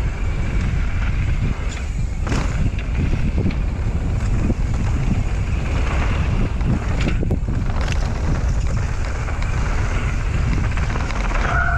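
Wind buffeting a helmet- or body-mounted GoPro's microphone while a mountain bike rolls down a dirt trail, with steady tyre and drivetrain rumble and a few knocks from bumps in the trail.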